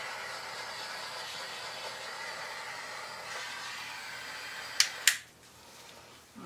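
Small handheld butane torch hissing steadily while it is played over wet acrylic pour paint to bring up cells. About five seconds in, two sharp clicks come as the flame hiss stops.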